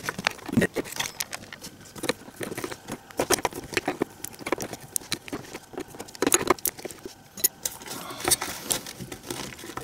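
A 13 mm combination wrench clinking against a bolt as the ignition coil's mounting-strap bolt is loosened: irregular light metallic clicks and taps.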